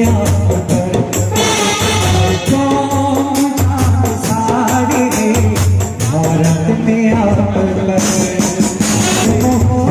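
An Indian brass band playing a Muharram qawwali melody, with held melody notes over deep bass notes and a steady shaker-and-tambourine-like percussion beat.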